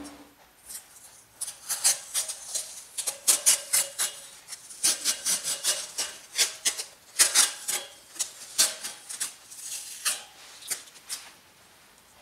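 Tape being wound by hand around a steel handle tube: irregular scratchy rustles of tape and backing paper rubbing and peeling, many in quick succession, dying away near the end.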